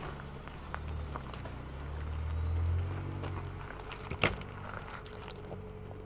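Ford Ranger Raptor pickup's engine running low and slow as it crawls over rocks, swelling about two seconds in and then fading as the truck moves off, with tyres crunching and small stones clicking. One sharp knock about four seconds in.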